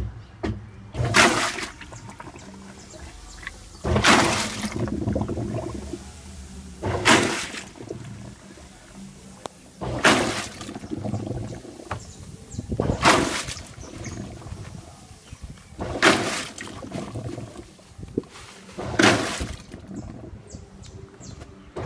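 Washing machine agitating a load in water: a loud sloshing swoosh about every three seconds, over a low steady motor hum.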